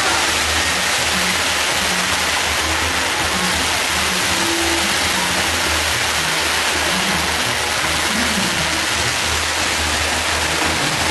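Steady, loud hissing of burning fireworks, the fizzing spray of a castillo fireworks tower's fountains and wheels, with no bangs. An uneven low rumble runs underneath.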